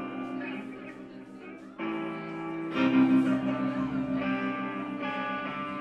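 Guitar chords struck and left to ring, a new chord about two seconds in and another about three seconds in.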